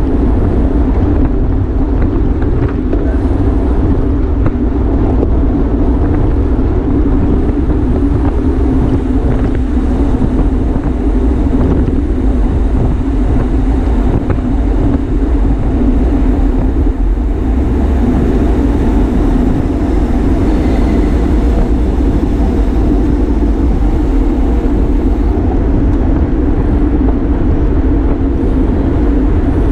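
Steady wind rush on a camera microphone riding along on a road bike at race speed, with an even tyre hum underneath.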